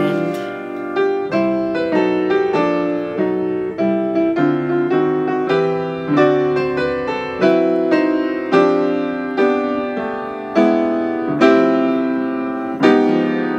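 Background piano music: single notes and chords struck about once a second, each ringing out and fading.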